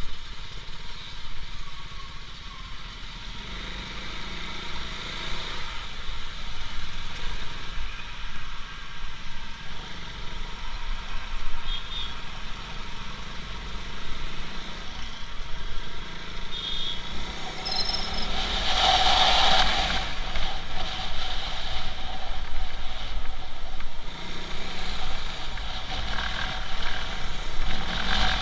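Motorcycle engine running and traffic noise while riding in slow traffic, with rushing noise on the camera microphone. About two-thirds of the way through, a brief louder burst stands out.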